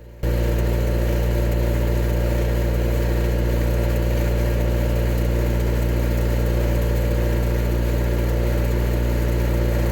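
Mini excavator engine running steadily at a constant speed. The sound cuts in abruptly just after the start and cuts off abruptly at the end.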